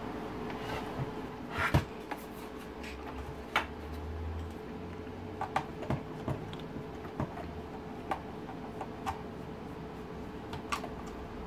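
Irregular sharp plastic clicks and taps as a screwdriver works at the plastic rear casing of an Audi TT MK1 instrument cluster, the sharpest about two seconds in, over a faint steady hum.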